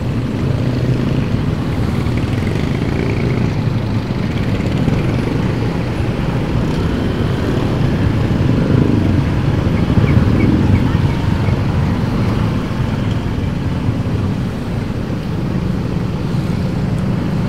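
Motorcycle engine running steadily with road rumble, riding slowly in dense traffic among other motor scooters and cars.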